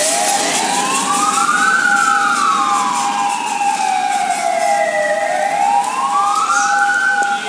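Fire truck sirens wailing: one sweeps slowly up and down in a long repeating cycle, over a second steady, unbroken tone.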